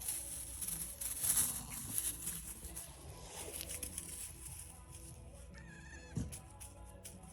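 Background music, with one short, high bleat from a baby Nigerian Dwarf goat about two-thirds of the way through.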